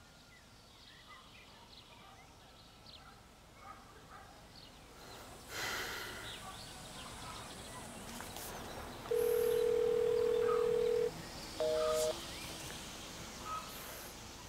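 Telephone tones: a steady beep lasting about two seconds, then a short beep of two notes sounded together, over a quiet rural background with faint bird chirps and a brief rustle about five seconds in.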